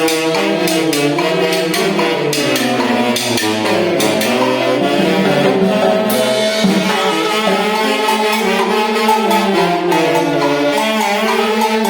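Tunantada, a Peruvian folk dance tune, played by a band-orchestra: wind instruments carry the melody over steady percussion.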